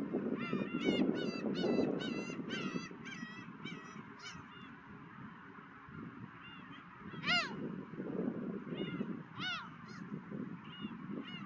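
Gulls calling: a quick run of about a dozen calls in the first few seconds, then scattered single calls, two of them louder. Under the calls, wind rumbles on the microphone.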